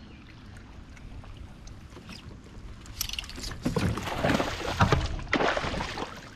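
Hooked bass splashing and thrashing at the water's surface beside a kayak. Several loud splashes come over about three seconds, starting about halfway in.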